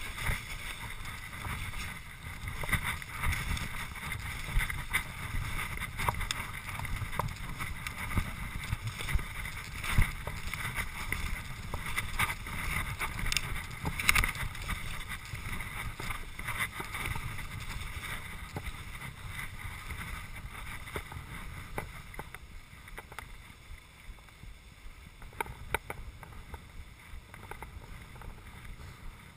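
Skis sliding downhill over snow: a continuous hissing scrape with scattered sharp clicks from the skis and poles, mixed with wind buffeting the camera microphone. It grows quieter in the last several seconds.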